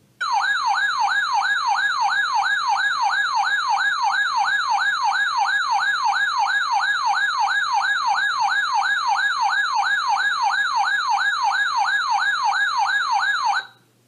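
A weather alert radio's siren alarm sounding for an incoming flash flood warning. It is a loud electronic tone sweeping rapidly up and down, about two and a half sweeps a second, that starts abruptly and cuts off after about thirteen seconds.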